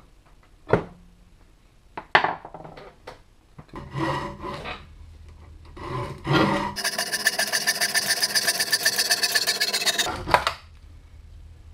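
A handsaw cutting through an old wooden shovel handle clamped in a vise, the handle being cut down for a hatchet handle. The sawing is a fast run of strokes that starts about halfway through and stops suddenly near the end. Before it come a few sharp knocks and clatters of tools being handled on a wooden workbench.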